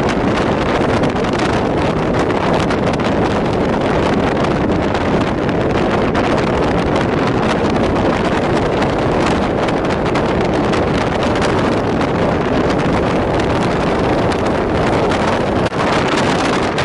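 Passenger train running at speed: a steady rushing rumble of the moving train, with wind buffeting the microphone.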